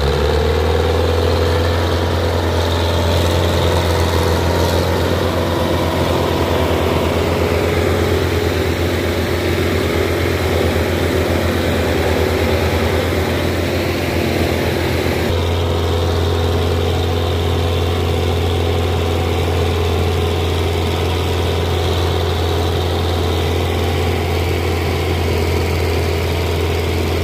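Belarus tractor diesel engines running steadily under heavy load, pulling a loaded sugarcane trailer in tandem; the exhaust is smoking black. The engine note shifts abruptly about halfway through.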